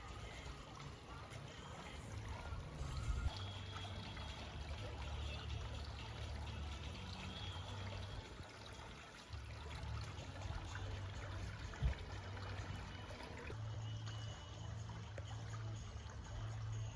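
Water trickling steadily, with a low steady hum underneath and a single click about twelve seconds in.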